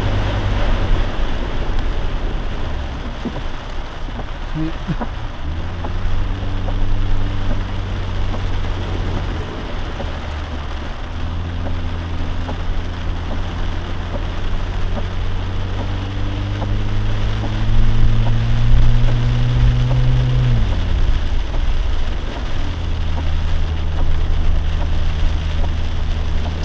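Lifted Jeep's engine pulling under acceleration, its pitch climbing slowly and falling away twice as it shifts, over a steady hiss of rain and tyres on the wet, flooded road.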